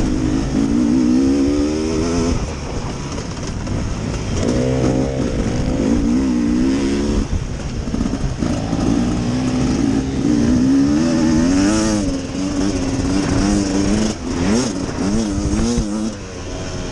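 Beta 300RR Race Edition two-stroke single-cylinder dirt bike engine at race pace, revving up and dropping back again and again as the throttle is opened and closed through the corners and straights.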